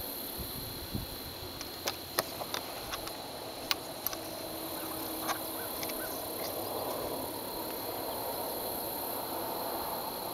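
Steady high insect buzz in the open air, with a few light clicks and knocks from fishing gear and a fish being handled in a small metal boat.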